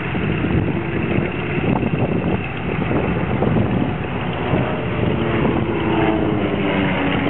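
PBY Catalina flying boat's twin radial engines running with a steady propeller rumble as it taxis past, the engine tones standing out more in the last couple of seconds.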